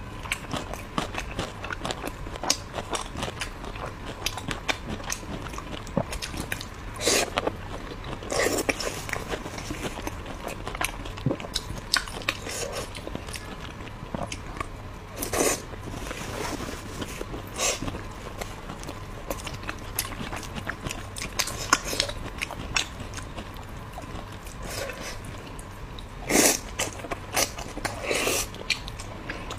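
Close-miked chewing of braised pork, potato slices and rice: steady mouth clicks and smacking, with a few louder mouth sounds scattered through.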